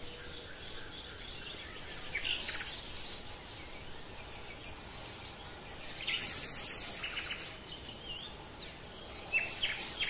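Birds chirping: scattered short chirps and whistled calls over a steady background hiss, with a quick trilling burst about six seconds in.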